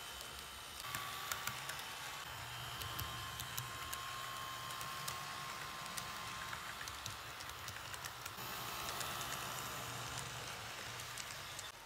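Model freight train running on layout track: a steady electric motor hum with a faint whine, and frequent light clicks of metal wheels passing over the rail joints.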